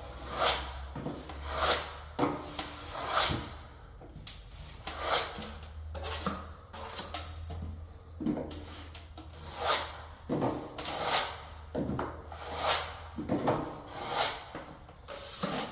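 Steel plastering trowel scraping stiff-mixed powdered filler into a wall-to-ceiling corner, in short repeated strokes about once a second.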